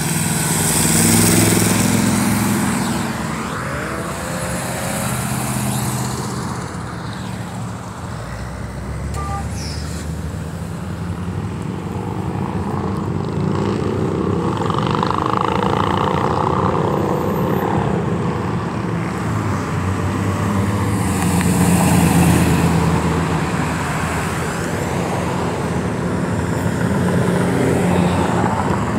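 Road traffic of cruising cars driving past, engines running steadily, with louder pass-bys about a second in and again about three-quarters of the way through.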